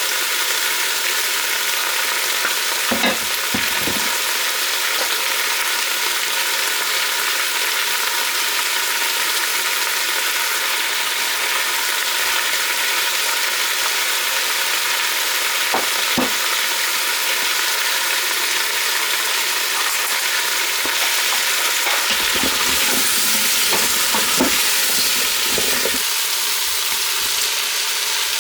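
Food sizzling steadily as it fries in a pan, with a few sharp knocks of a utensil against the pan and a short stretch of stirring clatter near the end.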